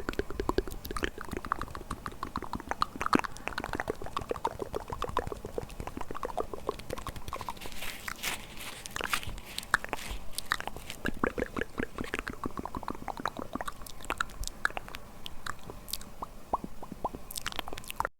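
ASMR mouth sounds close to the microphone: a rapid, continuous stream of wet clicks and smacks from the lips and tongue. The sound cuts out briefly near the end.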